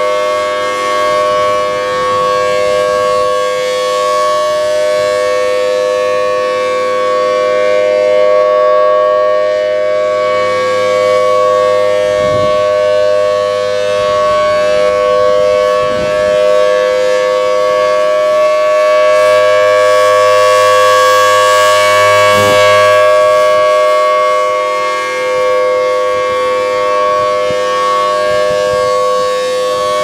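Federal Signal Thunderbolt 1000T single-phase civil defense siren sounding a steady tone in a scheduled siren test, its sound swelling and fading every several seconds as the rotating horn turns.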